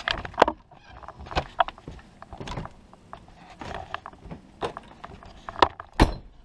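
Knocks and clatters from a Fleetwood Flair motorhome's entry door and steps as someone climbs out, ending near the end with two solid thuds as the door is pushed shut on its latch.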